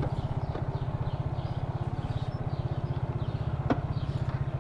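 Motorcycle engine running at low speed, heard from the rider's seat: a steady, rapid low pulsing of the exhaust, with one sharp click a little before the end.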